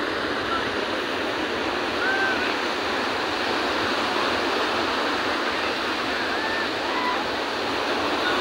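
Sea surf breaking and washing up a sandy beach, a steady rush of water.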